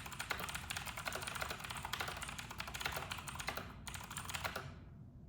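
Fast typing on a Razer BlackWidow V4 Pro mechanical keyboard with clicky Razer Green switches: a dense stream of key clicks for nearly four seconds, a short final burst, then the typing stops about four and a half seconds in.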